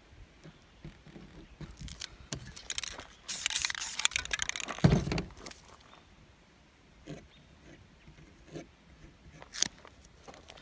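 Painting-tool handling noises: a rough hissing scrape lasting about a second and a half, beginning about three seconds in and ending in a low thump, then a few light clicks and taps.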